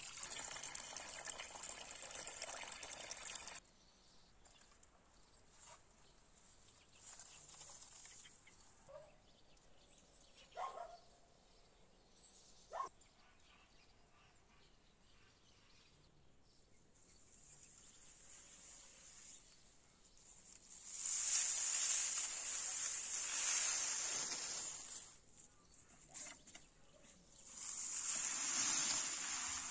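Water running or being poured in spells: about three and a half seconds at the start, again for several seconds after the middle and once more near the end. Between the spells it is quiet apart from a few brief clinks or knocks.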